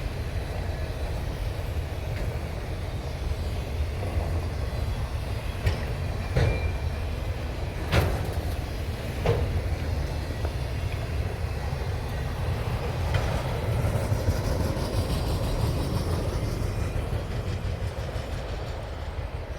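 Freight train cars rolling past with a steady low rumble. A handful of sharp metallic clanks come between about six and thirteen seconds in, the loudest at about eight seconds, and the rumble eases off near the end.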